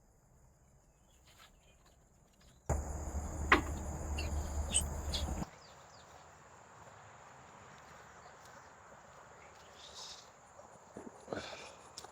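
Insects droning outdoors in a steady high-pitched buzz. From about three seconds in, a louder low rumble with a few clicks lasts nearly three seconds, then stops suddenly.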